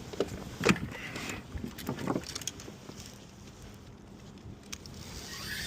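Water sloshing against a small boat's hull, with a few knocks in the first two seconds.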